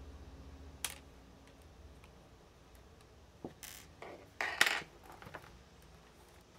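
Handling noise from a laptop being worked on at a desk: one sharp click about a second in, then brief scrapes and a loud clatter around four and a half seconds as the laptop is lifted off the desk, followed by a few light ticks.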